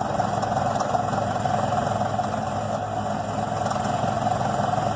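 Heavy machinery's diesel engine running steadily, a continuous rumble with no change in pace.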